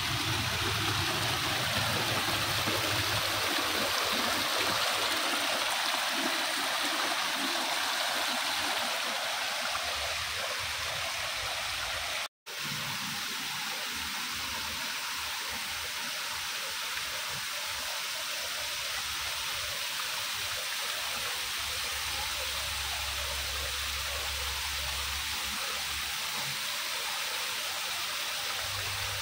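Water cascading over rocks in a landscaped rock-garden waterfall: a steady rush of splashing water. The sound cuts out for a split second about twelve seconds in, then carries on a little quieter.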